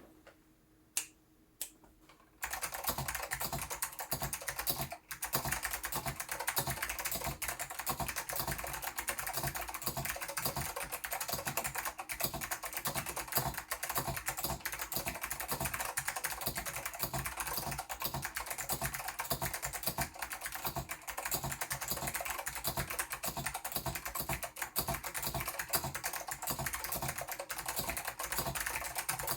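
OEMMAX MCK-860 mechanical keyboard with clicky Blue Alps switches being typed on. Two single keystrokes come about a second in, then fast, continuous typing starts after about two seconds.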